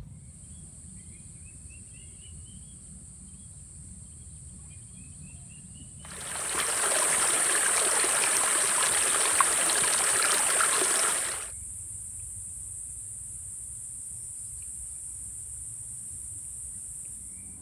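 Small rocky stream rushing and splashing over stones. It comes in about six seconds in and stops abruptly about five seconds later. A steady high-pitched insect drone runs underneath.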